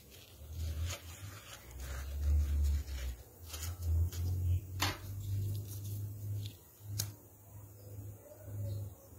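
Uneven low rumble of handling noise, with a few sharp clicks, the clearest about five seconds in and another about seven seconds in.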